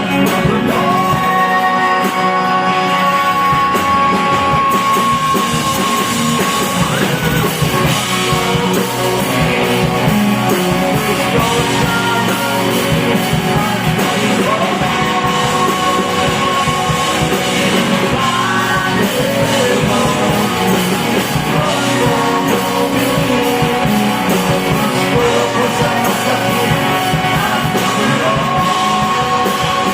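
A rock band playing live, with electric guitars, bass, drums and a sung vocal line, recorded loud from the audience.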